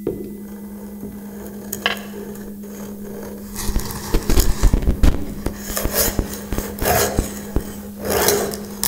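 Electroacoustic free improvisation on amplified tabletop guitar and electronics: a steady low hum, joined about three and a half seconds in by irregular scraping, rasping and knocking sounds from objects worked on the amplified surfaces.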